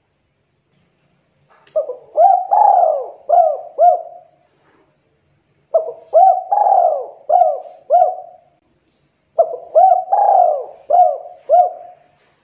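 Spotted dove (tekukur) cooing: three repeated song phrases, each of five or six hooked coo notes rising and falling in pitch, starting about a second and a half in, with short pauses between phrases.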